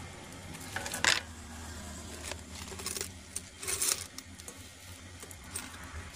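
A plastic jar of coins and banknotes being picked up and handled: a few knocks and coin clinks, the loudest about a second in and a short rattle near four seconds.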